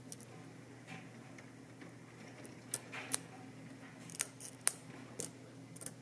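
Lock pick and tension tool working the sliders of a Vidmar slider lock: a scatter of small sharp metallic clicks, several coming close together in the second half, over a faint steady hum. In slider picking, clicks like these can mean a slider has been lifted high enough.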